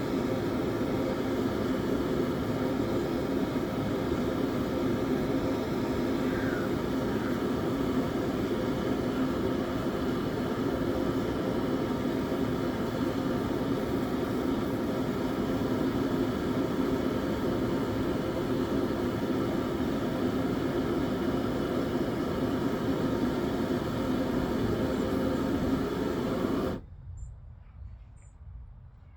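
Blacksmith's forge running with a steady rushing noise, as the high-carbon steel is heated for hardening; it stops suddenly near the end.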